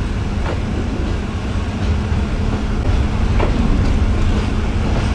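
Train running along the track, heard from on board: a steady heavy rumble with a few sharp clacks from the wheels and carriage.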